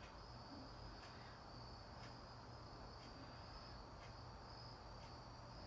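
Faint, steady high-pitched trilling of crickets and cicadas outdoors, a continuous note with faint ticks about once a second, over a low steady hum.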